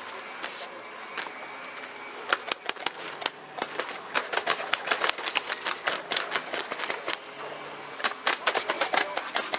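Rapid, irregular sharp clicks and pops of model warships' BB cannons firing. A few single shots come first, then dense volleys from a couple of seconds in, with a short lull before another fast run near the end.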